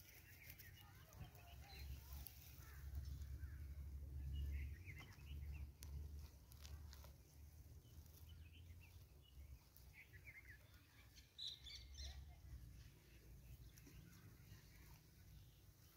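Faint, scattered bird chirps over a low, uneven rumble.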